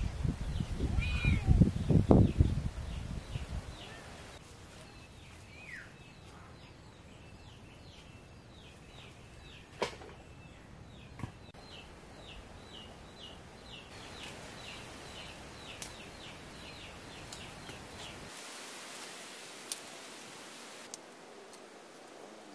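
A tabby kitten meowing loudly a few times in the first few seconds. After that comes a long, even series of short high chirps, a couple each second, over faint outdoor background.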